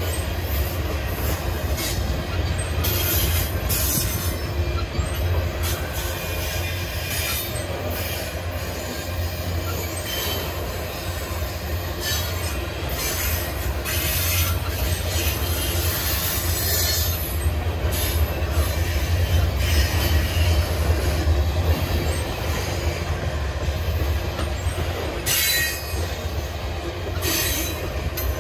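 Freight cars of a long manifest train rolling past, a steady rumble of steel wheels on rail. High wheel squeals come and go every few seconds.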